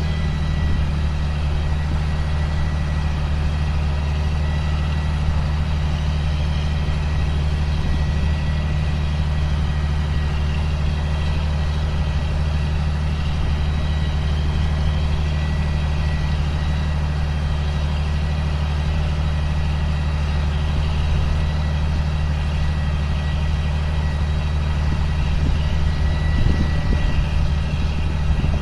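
2005 John Deere self-propelled sprayer running steadily, a low diesel drone with a faint, steady high whine over it.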